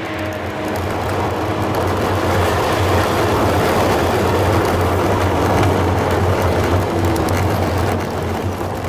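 A 4x4 driving on a gravel track, heard from inside the cabin. A steady low engine drone runs under dense tyre and gravel noise.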